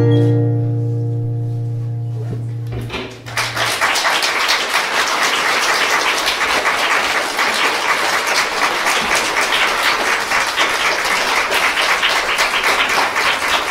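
A final music chord rings on and fades for about three seconds, then an audience breaks into steady applause that thins out near the end.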